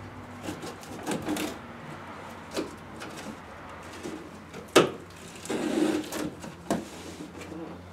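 Packing tape being picked at and peeled off a cardboard shipping box, with the cardboard rustling and scraping under the hands. A sharp snap comes a little under five seconds in, followed by a longer rasping rip of tape.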